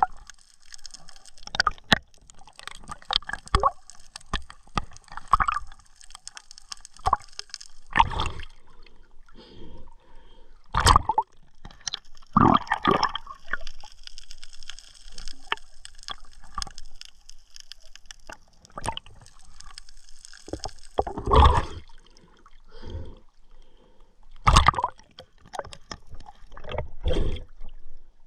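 Sea water sloshing and gurgling around the camera in irregular bursts, one every second or two.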